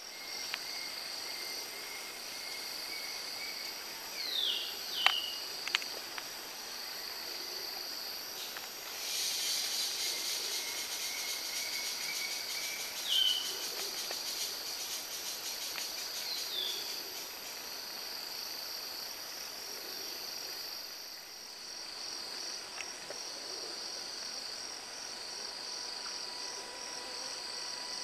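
Steady shrill chorus of forest insects, a high pulsing buzz, with a few short falling bird calls scattered through it and a couple of sharp clicks about five seconds in.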